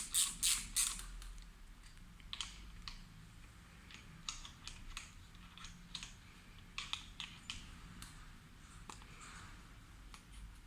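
Ratchet socket wrench clicking rapidly and evenly as the fork's bottom cap is unscrewed, stopping about a second in. After that come scattered light clicks and taps.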